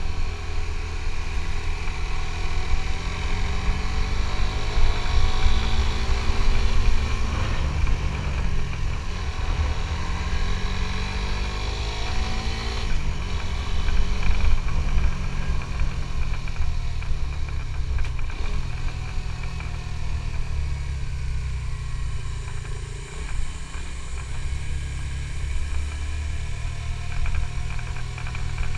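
Suzuki GSX-S150's single-cylinder four-stroke engine running under way, its pitch rising and falling repeatedly as the rider opens and closes the throttle.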